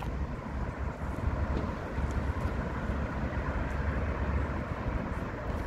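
Classic roller skis rolling over asphalt: a steady, rough rumble from the small wheels, with uneven low buffeting on the microphone.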